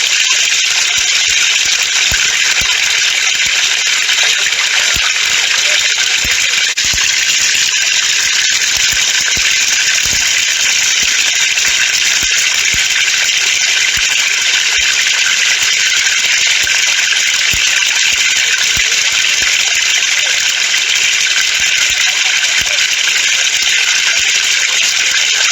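Water falling from a pipe and splashing steadily, a constant rush with many small drop impacts through it.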